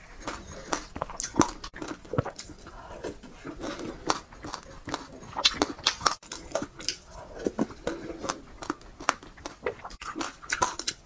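Close-miked mouth sounds of someone sipping and chewing a sesame-seed soup from a spoon: many sharp, irregular smacks and clicks with wet slurps.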